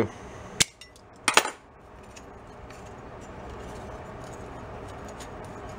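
Small metal hand tools clinking: a sharp metallic click about half a second in, then a short clatter a moment later, as locking pliers are unclamped from a steel lamp bracket and set down on the workbench. Faint handling ticks follow.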